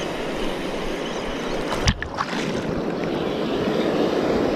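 Steady wash of waves on the shore mixed with wind buffeting the microphone, broken by one sharp knock about two seconds in.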